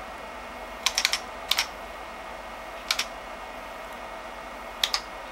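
Keystrokes on the IBM PC 5150's Model F keyboard, with its buckling-spring keys clicking: a quick run of key presses about a second in, a single one near three seconds and a pair near the end, as the BASIC command LIST is typed and entered.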